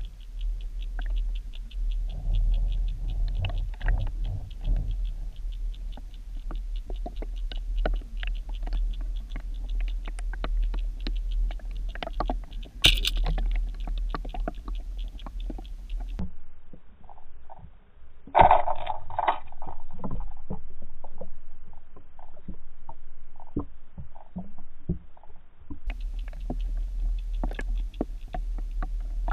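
Muffled underwater sound picked up through a submerged action camera's housing: a low rumble with a stream of small clicks and ticks, and a brief louder rushing noise about eighteen seconds in.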